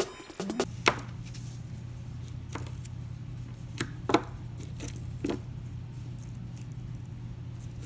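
A car key fob being handled, with a few separate light clicks and rattles over a steady low hum.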